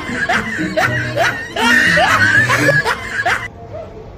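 Comedy background music with rapidly repeating rising swoops, about three a second. It drops suddenly to a quieter passage about three and a half seconds in.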